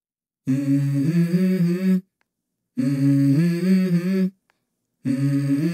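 A short wordless, hummed vocal melody, heard three times with brief breaks, each time the same phrase stepping up in pitch partway through.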